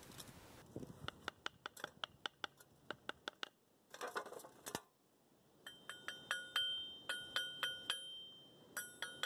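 Freshly cast stainless-steel parts knocking together as they are handled: a string of light taps and a short scrape, then, in the second half, sharper clinks that ring briefly with a metallic tone.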